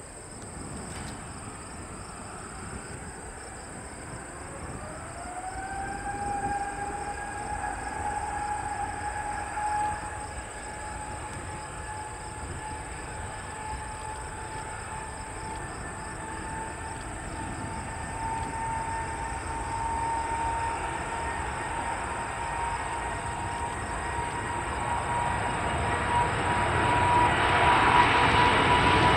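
Airbus A350-900's Rolls-Royce Trent XWB turbofans spooling up to takeoff power: a whine that sweeps up in pitch about five seconds in, then keeps climbing slowly and growing louder as the jet accelerates down the runway.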